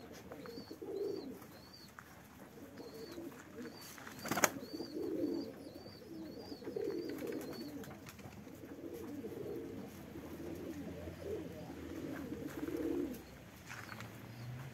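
Domestic pigeons cooing in repeated low phrases, with faint pecking ticks as they feed on grain. A run of short high chirps sounds in the first few seconds, and one sharp knock comes about four seconds in.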